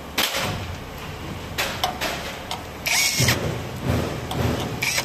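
A hand tool working at a steel door hinge's screws, giving a few sharp clicks and a short, louder scraping noise about three seconds in.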